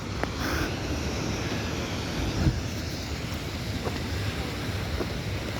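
Wind buffeting the microphone over the steady wash of ocean surf, with a brief thump about two and a half seconds in.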